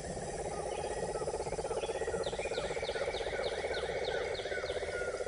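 Animal calls: a steady, fast-pulsing trill, joined about two seconds in by a run of quick repeated chirps, about three a second.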